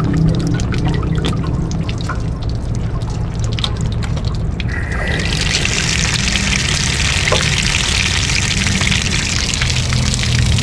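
Water draining from an RV water heater tank through the open anode-rod port: trickling and dripping at first, then about five seconds in it changes to a strong, steady gushing pour.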